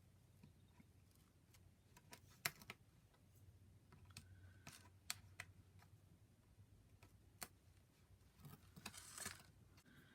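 Faint scattered clicks and taps of thin card pieces being handled and fitted together, the sharpest about two and a half seconds in, with a short paper rustle near the end.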